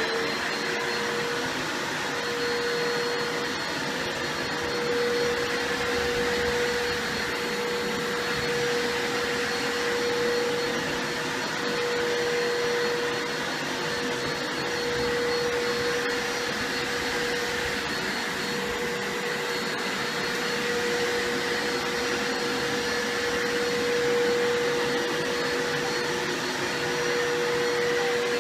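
Bissell carpet cleaner running steadily, its motor giving a constant whine over a rushing of air.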